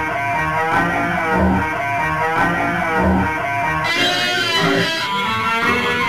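Rock music led by electric guitar, with a low bass note pulsing about every second and a half. About four seconds in, the bass drops away and the guitar carries on higher.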